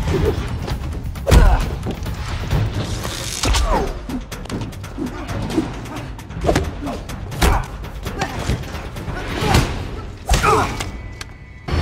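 Action-film soundtrack: music under a string of hard thuds and impacts, the loudest about a second and a half in, with further hits spread through the rest.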